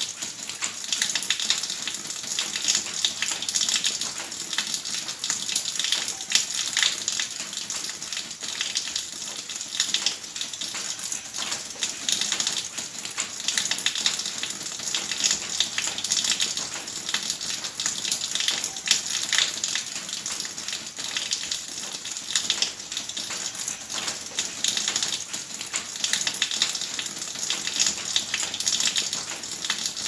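Water pouring from a spout into a tub already full of water, splashing steadily with a constant patter and crackle of droplets.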